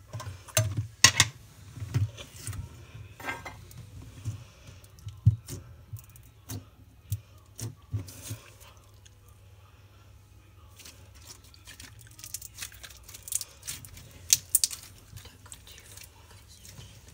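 Slime being squeezed and poked by hand: irregular sharp clicks, pops and crackles. They pause briefly in the middle, then come back as a denser cluster of crackles.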